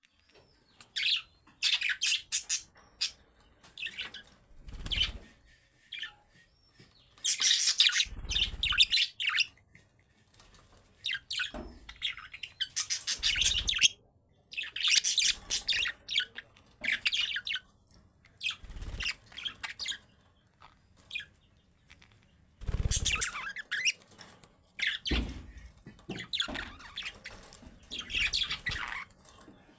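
Budgerigars chirping and warbling in rapid bursts of chatter with short pauses, joined by a few brief low thumps.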